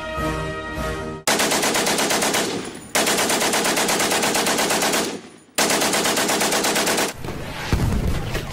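Machine gun firing three long bursts of rapid, even shots with short pauses between them, cutting in about a second in after the end of an orchestral march. Near the end, low booms of artillery fire begin.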